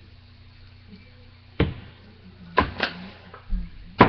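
Four sharp knocks of plastic seasoning shakers being handled and set down on a countertop, two of them close together, over a steady low hum.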